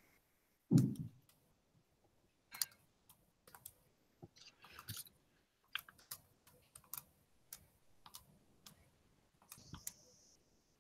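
Faint, irregular clicks and taps, like keys being pressed while someone works a problem, with one louder low thump just under a second in.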